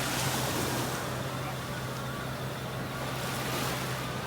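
An engine running steadily at an even pitch, over a continuous hiss.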